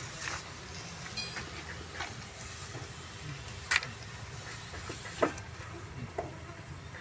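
Steady low hum with faint hiss, broken by a few scattered sharp clicks and knocks, the loudest two coming about four and five seconds in.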